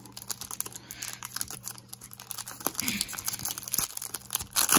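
Foil wrapper of a 2008 SP Rookie Edition football card pack crinkling and tearing as it is pulled open by hand. The crackling is irregular, and the loudest crinkle comes near the end.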